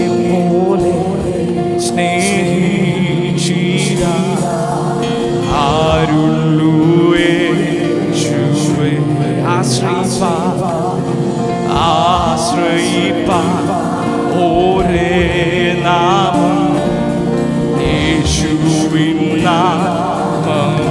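Live worship music: sustained keyboard chords held under singing voices with a wavering vibrato that come and go.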